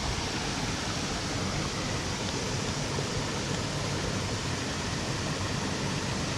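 Steady rush of a waterfall and its stream.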